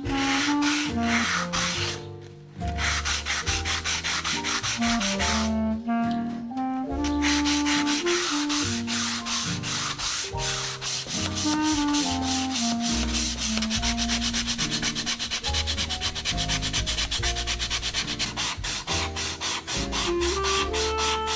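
Sandpaper on a hand sanding block rubbed back and forth along the edges of a wooden frame in quick, rasping strokes. The strokes break off briefly twice in the first seven seconds, then run fast and steady.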